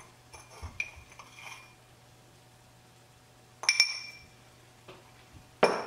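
Kitchen utensils clinking as salt is added from a jar to rice in a stainless steel wok: a few faint light clicks at first, one sharp clink with a brief ring about halfway through, and another sharp click near the end.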